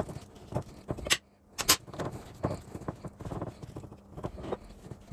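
Gloved fingers working a wet yogurt-and-spice marinade paste on a ceramic plate: irregular soft squishes and taps, with two sharp clicks about half a second apart a little over a second in.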